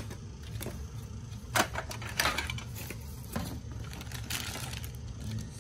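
Hard plastic parts of a Kaytee CritterTrail Carry & Go hamster habitat clicking and clattering against each other and the plastic base as they are unpacked, with plastic wrapping crinkling. A few scattered clatters, then a longer rustle a little after four seconds in.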